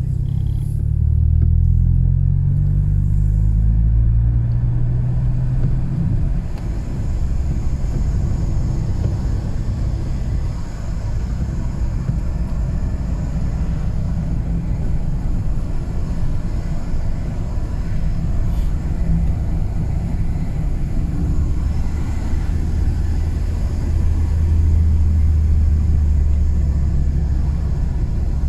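BMW E36 under way, heard onboard: a low engine drone and road rumble. The engine note rises under acceleration over the first few seconds, then holds steady, growing stronger again near the end.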